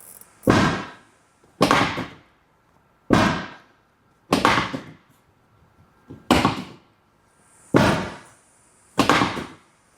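Chiropractic drop-table sections slamming down under repeated thrusts: seven loud thumps a little over a second apart, each with a short ringing tail.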